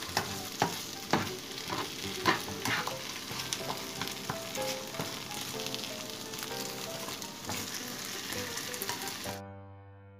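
Diced potatoes and onions sizzling in a frying pan while a spatula stirs them, scraping and knocking against the pan several times. The sizzling cuts off suddenly near the end, leaving faint background music.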